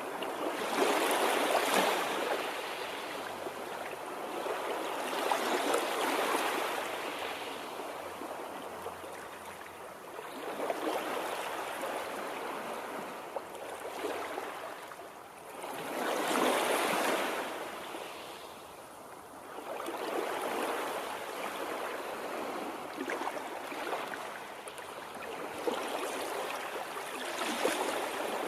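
Water rushing steadily, swelling louder and easing off again every four to five seconds.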